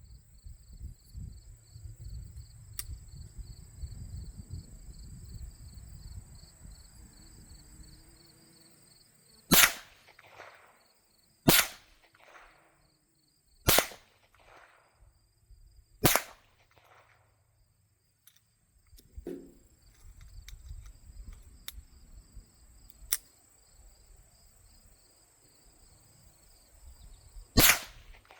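Ruger Mark IV .22 LR target pistol firing single shots, five in all: the first about ten seconds in, three more roughly two seconds apart, then a last one near the end, each followed by a short echo.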